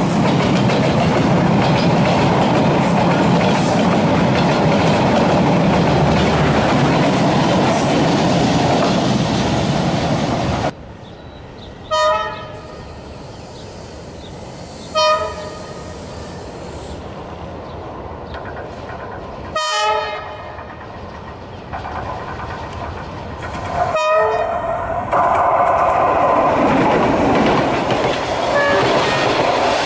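Vietnam Railways passenger carriages roll past close by with a loud, steady rumble of wheels on the rails. Then a diesel locomotive approaching on the line gives four short horn blasts a few seconds apart. Near the end its train passes close with the same rolling noise.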